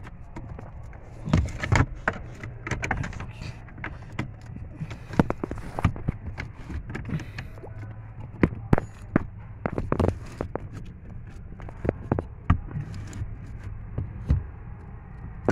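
Irregular metallic clicks and knocks of a Torx wrench working the pinch bolt where the universal joint of the EcoSport's electric steering column joins the steering shaft; the bolt is being tightened because its looseness is causing a loud clunk in the steering. A steady low hum runs underneath.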